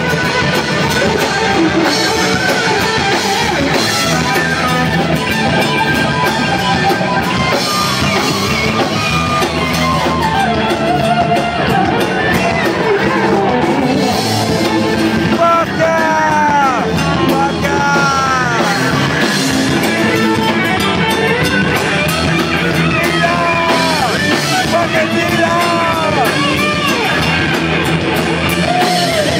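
Live heavy metal band playing an electric guitar solo over bass and drums, the lead guitar making repeated pitch bends that rise and fall.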